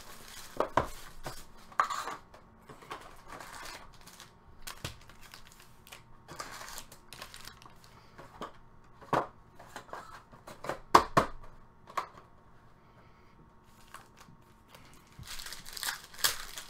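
Clear cellophane wrap crinkling as it is pulled off a cardboard trading card box, then scattered sharp taps and clicks as the box and foil packs are handled. Near the end a foil card pack crinkles as it is torn open.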